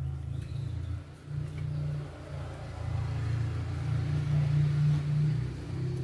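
Low rumble of a motor vehicle's engine, growing louder to a peak about four to five seconds in, then easing off.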